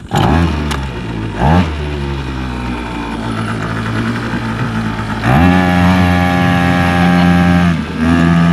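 Small 3.5 hp Hangkai two-stroke outboard motor starting up and running, with a short rev about a second and a half in. About five seconds in the throttle is opened and the engine runs faster and holds there, dipping briefly near the end.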